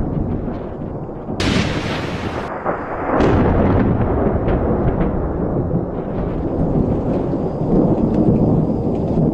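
Thunder: a continuous low rumble with a sharp crack about one and a half seconds in and another clap about three seconds in.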